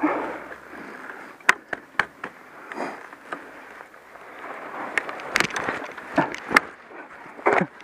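Snow crunching and scraping with a string of sharp knocks and clicks, as a Yamaha WR250R dirt bike on standard tyres is wrestled on a snowy slope it cannot climb. The knocks come thickest about five to seven and a half seconds in.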